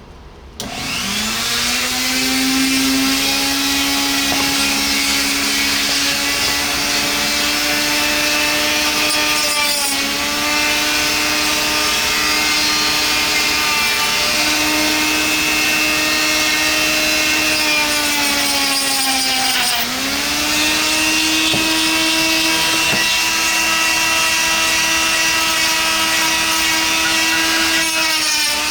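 Cheap rotary tool with a cutting wheel starting up and cutting into 3D-printed PLA plastic: a steady high whine that dips in pitch and recovers twice, about ten and twenty seconds in, as the wheel bogs under load.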